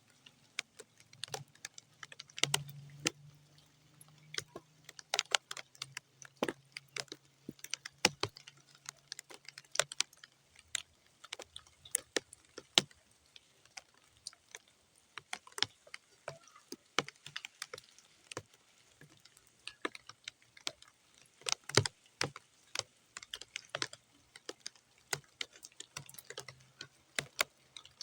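Raindrops falling on wet, muddy ground: sparse, irregular sharp taps, several a second, rather than a steady hiss. A faint low hum runs under them for about the first third.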